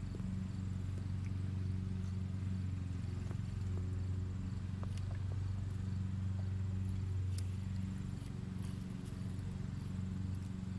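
A steady low mechanical hum, even in pitch, with a few faint scattered clicks over it.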